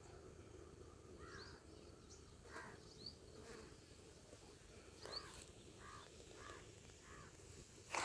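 Faint outdoor ambience: a low steady hum with a few faint short chirps scattered through it.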